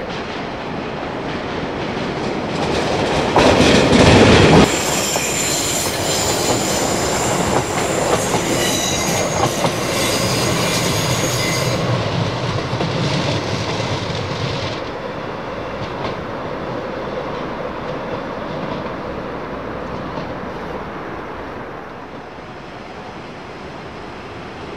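A Pacer-and-Sprinter diesel multiple unit passes on curved track. A loud rush comes as it draws alongside about three to four seconds in, then a high wheel squeal on the curve, and a low engine rumble with rail clicks as it pulls away. The sound fades toward the end.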